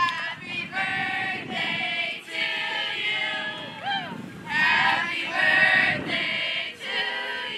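A group of teenage girls singing together without accompaniment, in long held notes.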